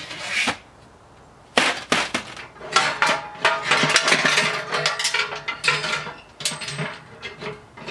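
Steel wood-stove parts knocking and clanking against the stove's steel body as a barred spark screen is pulled out of the firebox, with a metallic ring. Two sharp knocks come at about a second and a half in, then a run of rattling clanks follows for several seconds.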